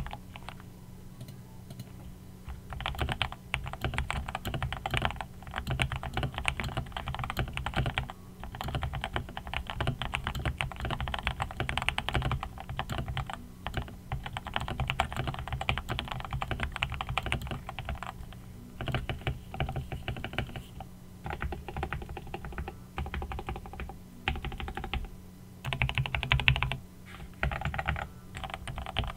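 Typing on a Womier/Gamakay K87 mechanical keyboard with Gateron Milky Yellow linear switches: dense runs of key clacks in bursts, starting about three seconds in and broken by short pauses. A faint steady hum sits underneath.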